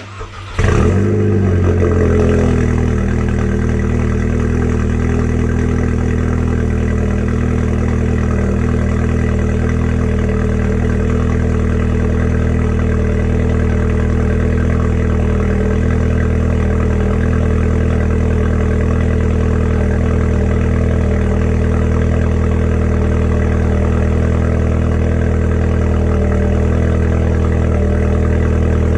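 2010 VW Golf 6 R's turbocharged 2.0-litre four-cylinder cold-starting through an aftermarket SLS Tuning downpipe. It cranks briefly, catches with a rev flare under a second in, then settles within a couple of seconds to a steady cold idle.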